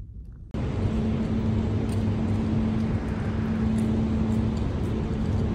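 Steady hum and rumble of a concrete parking garage, with one steady low tone under it. It starts abruptly about half a second in, and the tone drops out near the end.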